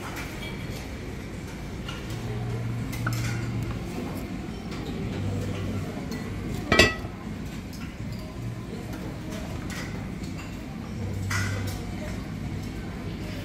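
Dishes and cutlery clinking at a buffet counter, with one loud, sharp clink about halfway through as the lid of an enamelled cast-iron casserole pot is handled.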